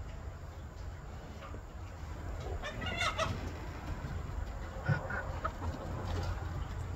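Chickens clucking, with a cluster of short calls about three seconds in and a few more around five seconds.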